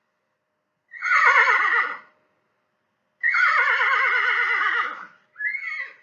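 Horse whinnying: three quavering whinnies that fall in pitch, the first about a second in, the second the longest, and a shorter third near the end.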